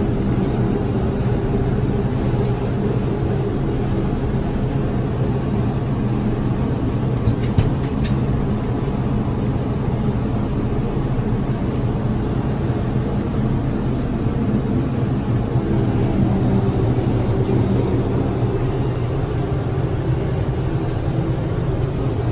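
Steady low mechanical hum and drone inside an enclosed observation-wheel gondola as the wheel turns, with a few faint clicks about seven to eight seconds in.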